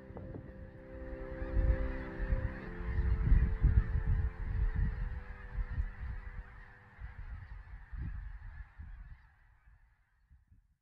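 Wind rumbling on the microphone in uneven gusts, under held chords of soft background music; both fade out near the end.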